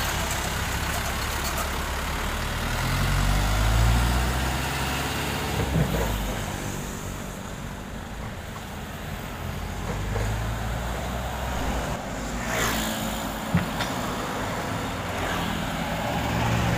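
Diesel engine of a loaded light dump truck pulling away and driving off, its rumble swelling about three to five seconds in and then fading as it moves away. A steady engine hum, from a mini excavator, takes over near the end.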